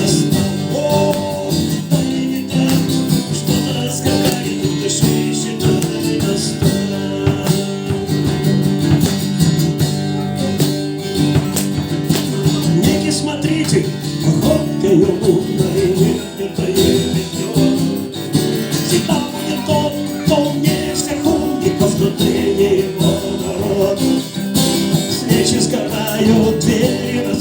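Guitar strummed steadily through an instrumental break in a live song.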